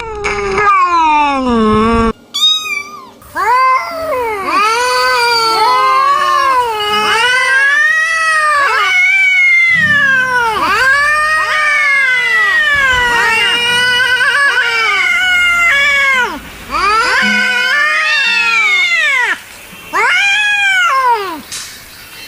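Angry cats yowling: long, wavering caterwauls that rise and fall in pitch, one after another with hardly a pause. This is the drawn-out threatening yowl of hostile cats.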